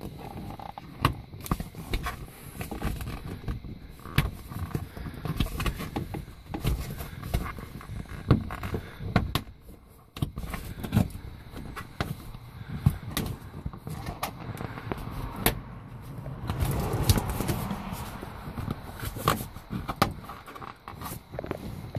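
Snap fasteners on a convertible top's interior trim material being pressed back into place by hand: a string of irregular sharp clicks and knocks amid handling and rustling of the material, which grows denser about three quarters of the way through.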